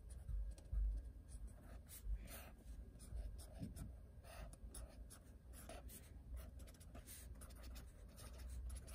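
Felt-tip pen scratching quietly across notebook paper in many short, irregular strokes as a picture is drawn.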